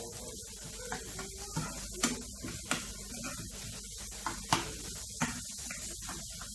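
Minced onions sizzling in oil in a frying pan while being stirred: a steady hiss with repeated sharp knocks and scrapes of the utensil against the pan.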